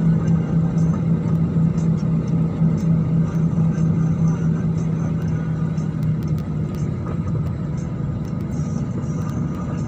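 Jet airliner cabin noise heard from inside: a steady rumble of the engines and air systems with a constant low hum, easing slightly about six seconds in, with a few faint light ticks.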